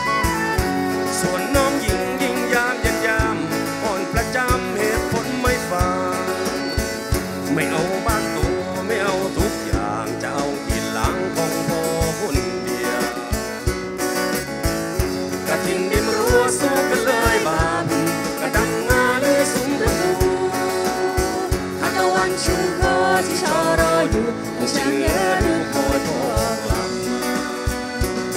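Live Thai folk-rock (phleng phuea chiwit) band playing an instrumental break: a flute melody over strummed acoustic guitar, electric bass and a drum kit keeping a steady beat.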